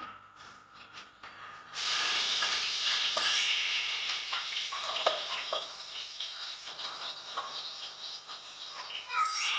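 Food sizzling in hot oil in a pan, starting suddenly about two seconds in and carrying on steadily with small crackles.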